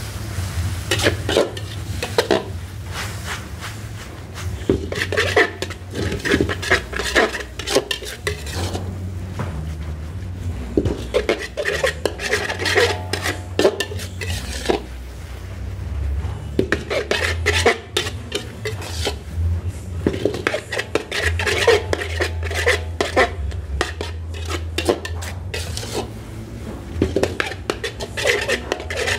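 Long metal ladle scraping and clanking against a large metal wok as fried rice vermicelli is stirred and tossed, in bursts of rapid scraping every few seconds, over a steady low hum.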